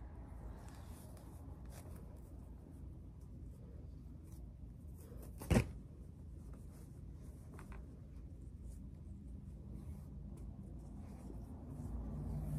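Soft rustling and brushing of synthetic braiding hair being handled and twisted, with faint clicks over a low steady room rumble. One sharp knock sounds about five and a half seconds in, and a low hum comes in near the end.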